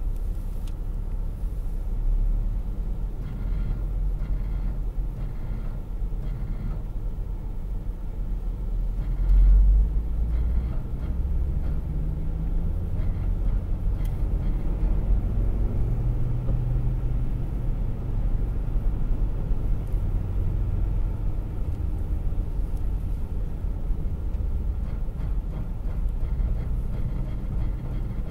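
2001 Volvo XC70 driving in second gear: a steady low rumble of the running car, carrying a strange noise that the owner wonders may be ABS-related. A brief louder surge comes about nine seconds in.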